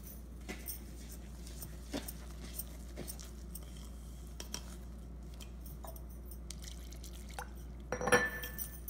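A spatula stirring a wet flour-and-water batter in a stainless steel bowl: scattered light clicks of the spatula against the bowl, and a louder, briefly ringing clink about eight seconds in.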